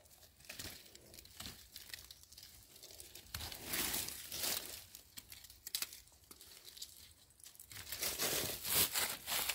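Dry leaves and plant debris rustling and crackling in irregular bursts. It grows louder about three and a half seconds in and again near the end.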